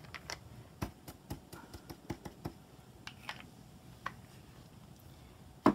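A bingo dauber's foam tip dabbed repeatedly onto paper: a quick run of soft taps, a few more spaced out, then one sharp louder click near the end.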